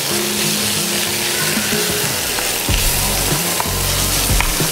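Minced spiced lamb belly frying in a hot pan, a steady sizzle as it is stirred with a wooden spoon and its fat renders out.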